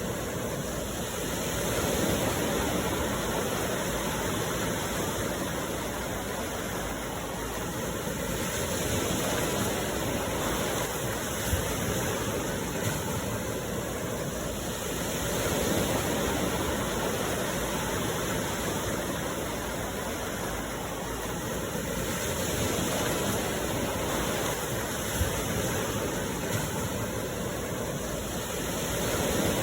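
Sea surf washing ashore: a continuous rush of water that swells and eases about every six to seven seconds as waves break.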